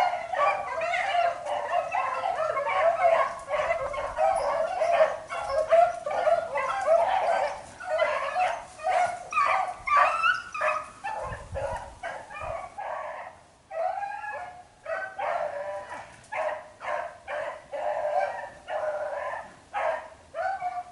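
Beagles baying as they run a rabbit's trail. The bays come thick and overlapping for the first half, then as more spaced, separate cries.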